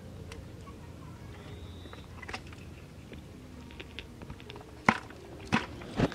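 A few sharp clicks or knocks over a low, steady background. The loudest three come near the end, a little over half a second apart.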